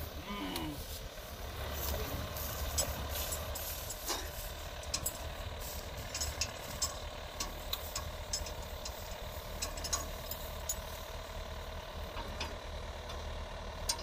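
Yanmar AW82 combine harvester's diesel engine running steadily as the tracked machine drives slowly forward, with scattered short sharp clicks and knocks throughout.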